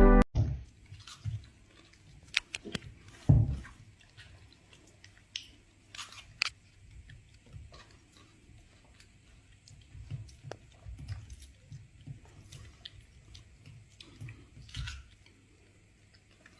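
Music cuts off suddenly at the start. It is followed by faint, scattered clicks and soft knocks at irregular intervals, with no steady sound between them.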